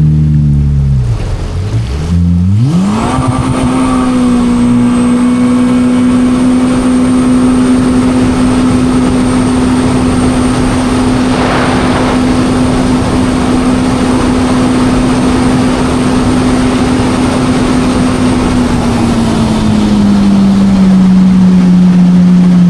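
Supercharged Yamaha FZS jet ski engine under way: the throttle comes off and the revs fall, then it revs up sharply about two seconds in and holds a steady high pitch at speed, easing down slightly near the end.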